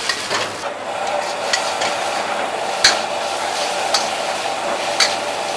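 Stir-frying kuey teow noodles and bean sprouts in a wok over a high gas flame: a steady sizzle under a metal wok spatula scraping and knocking against the wok. The sharp clinks come about once a second.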